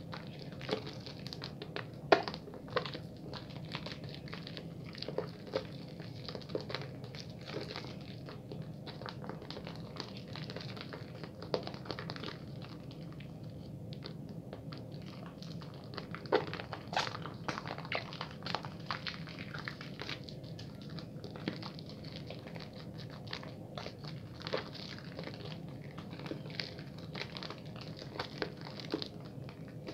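Bar soap being lathered: wet squishing with irregular crackles and clicks of the lather, a few sharper pops standing out, over a steady low background noise.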